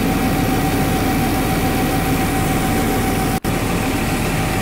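Tractor-mounted rice mill running, with its husking and polishing machines driven as rice pours out of the polisher: a steady loud mechanical drone with a constant whine. The sound drops out for an instant about three and a half seconds in.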